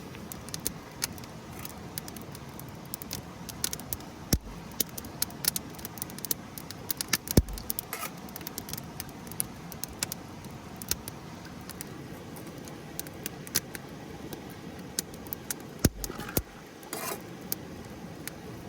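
Wood campfire crackling, with irregular sharp pops and snaps throughout, and a few dull knocks about four, seven and sixteen seconds in.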